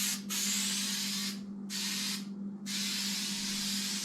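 Aerosol spray adhesive hissing from the can in long bursts, laying down a web-like coat of glue, with three short breaks as the nozzle is let up: a brief one just after the start, then two about half a second long in the middle. A steady low hum runs underneath.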